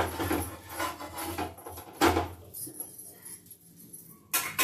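Steel kitchen utensils clinking and scraping: a metal turner on a dosa tawa and a steel ladle knocking in a steel bowl, in a few sharp strikes, the loudest about two seconds in and another near the end.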